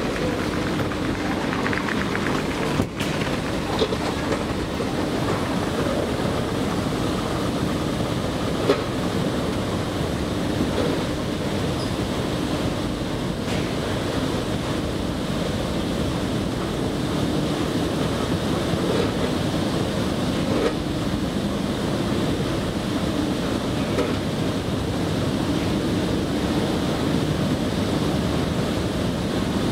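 Metro station escalator running while being ridden: a steady mechanical rumble and hum, with a few sharp clicks.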